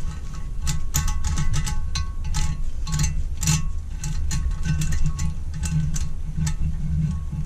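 Irregular small metallic clicks and ticks, several a second, from hand tools being handled on the engine's cast cover, over a steady low hum.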